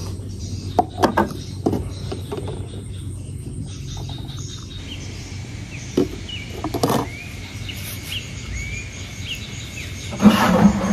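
Handling clatter and knocks of plastic containers and a small mesh strainer, with a louder noisy burst near the end. From about halfway in, a bird gives short rising chirps, about one or two a second, in the background over a low steady hum.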